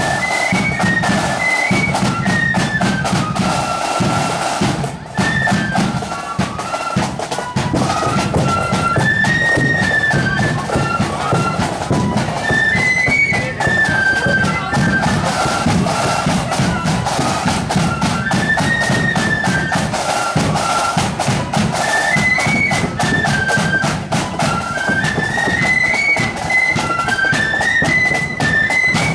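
Marching flute band playing a repeating march tune in unison on side-blown flutes, with drums keeping a steady beat underneath.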